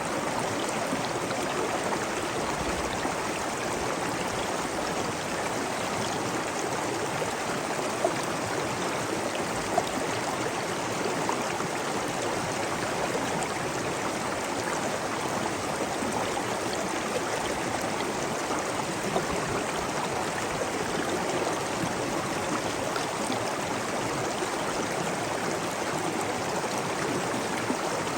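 Flowing water, a steady babble like a small stream running over stones, with a few brief, slightly louder splashes.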